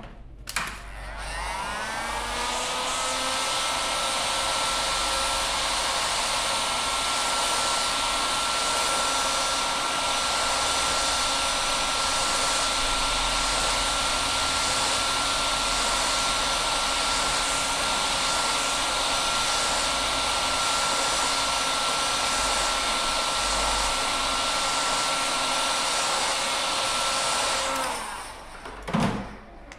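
Electric heat gun switched on: its fan whine rises as it spins up, then holds a steady whir and rush of air for about 27 s before it switches off near the end. It is heating a stuck wheel-rim screw to soften it so that it can be unscrewed without breaking.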